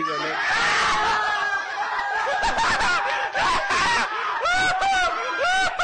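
Loud, high-pitched laughter: shrieking, cackling laughter at first, then a run of short cackles, each rising and falling in pitch, over the last couple of seconds.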